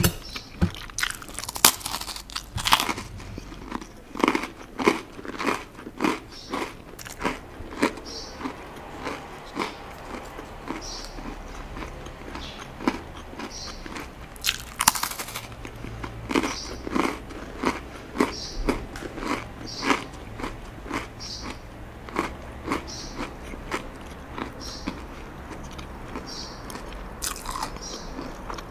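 Crunching bites into a crisp cracker followed by steady chewing, about one to two chews a second, with the loudest crunches near the start and about halfway through.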